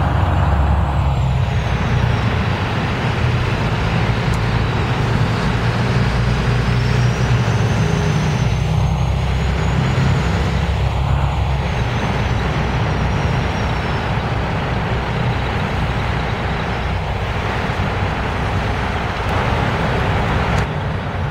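Diesel city transit bus engine running close by with a heavy low rumble, and a faint high whine that rises and then falls over several seconds.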